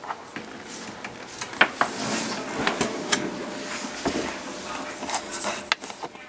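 Scattered clicks and light knocks of faucet parts and tools being handled during reassembly of a single-handle kitchen faucet.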